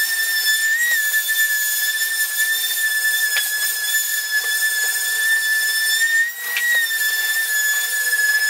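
Electric orbital finishing sander running on birch plywood: a steady high-pitched whine, with a short dip in level about six seconds in.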